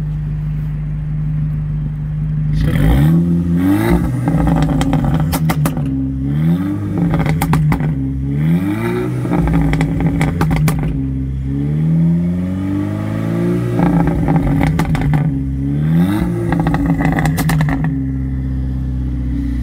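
Seat Leon Cupra R's tuned 2.0 TFSI turbo four-cylinder, heard at the twin exhaust tips, idling and then revved in neutral about six times. Each blip rises and falls back, held down by the factory rev limiter that works when no gear is engaged, with crackling pops from the exhaust as the revs drop. The engine settles back to idle near the end.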